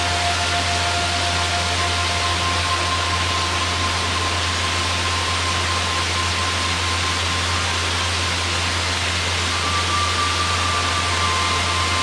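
Waterfall rushing steadily, water pouring over a rock ledge and splashing onto the boulders below.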